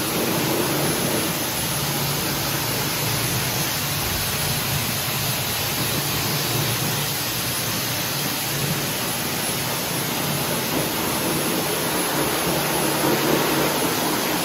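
Hose-type pet force dryer running steadily while drying a dog: a loud, even rush of blown air with a low motor hum underneath.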